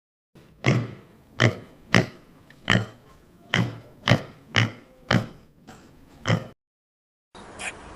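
Domestic pig grunting: about nine short, loud grunts in an uneven series.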